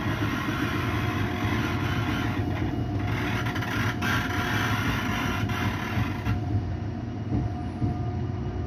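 Steady rumble and rail noise of a Caltrain commuter train, heard from inside a bi-level passenger car.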